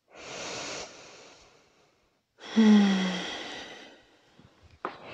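A woman takes a slow, deep breath in, then lets it out in a long audible sigh that starts with her voice sounding briefly and falling in pitch.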